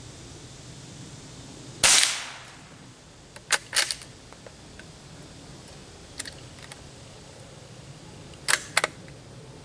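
A Savage Mark II bolt-action .22 rifle fires one low-velocity CCI Quiet-22 round about two seconds in: a single short report with a brief tail. Two pairs of sharp clicks follow, one about a second and a half after the shot and one near the end.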